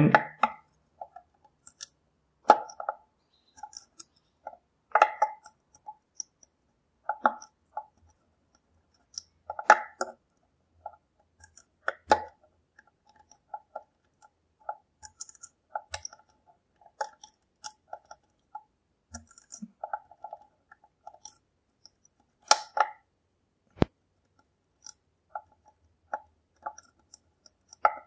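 Lock pick and tension tool working in the keyway of a GMG multi-point pump lock: irregular light metallic clicks and taps, with a few louder clicks every couple of seconds, as the levers are picked and set.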